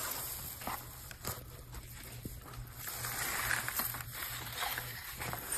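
Oiled Mini Miller flexible-shaft cable being pulled through its housing: soft rubbing and sliding with a few light knocks, over a low steady hum.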